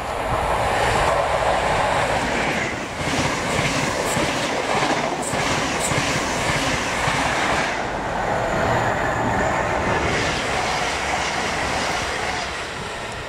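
Trains passing close by at speed, wheels clattering over the rail joints with a loud rushing of air. First comes a set of Great Western Mk3 coaches, then a Heathrow Express Class 332 electric multiple unit, with a short lull between them about eight seconds in.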